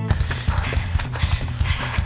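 Running footsteps thudding on a dirt woodland path: fast, irregular footfalls of more than one runner.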